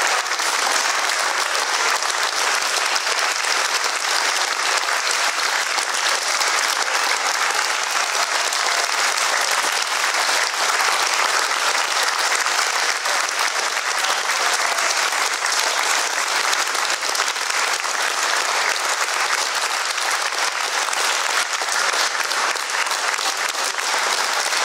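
Audience applauding, steady and dense clapping.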